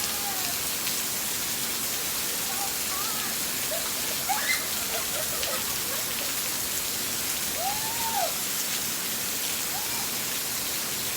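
Steady rain falling, an even hiss of drops, with a few brief faint sounds over it that rise and fall in pitch.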